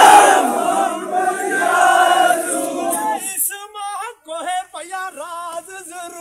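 A crowd of men shouts and chants together for about three seconds, then a single man's voice sings the next line. It is a call-and-response work chant led by one man to keep a team of haulers pulling in time.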